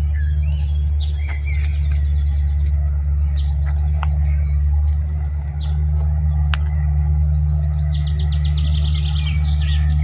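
Small songbirds chirping and singing, with a fast trill of rapidly repeated notes near the end, over a steady low rumble.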